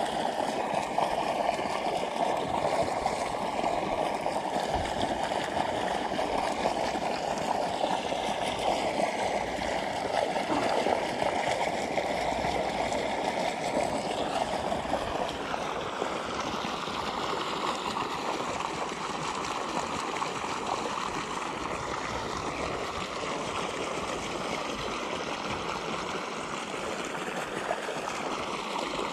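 Water gushing steadily from a pipe outlet into a pond, a continuous splashing pour.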